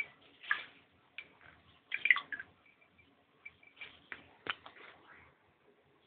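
Water splashing and dripping in short, irregular bursts as a conure bathes, loudest about two seconds in, with a sharp click a little later.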